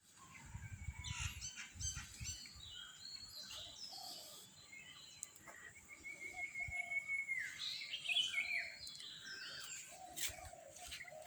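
Several birds chirping and calling, with one long whistled note about six seconds in. Some low rumbling in the first two seconds.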